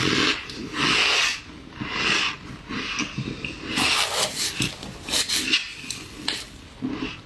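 Ice being chewed and crunched in the mouth: a series of crisp crunches roughly once a second, with a short pause in the middle.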